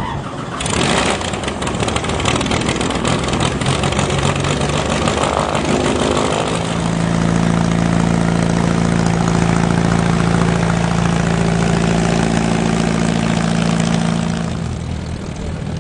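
AeroVee air-cooled, Volkswagen-based flat-four engine of an Onex single-seat light aircraft running and driving its propeller as the plane taxis. The engine settles into an even note about six seconds in and gets quieter near the end.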